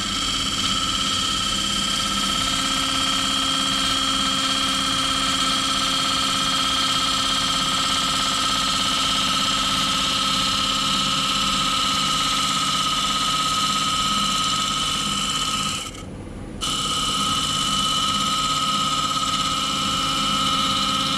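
Wood lathe running while turning a piece of wood: a steady whine with a constant hiss, dropping out briefly about three-quarters of the way through.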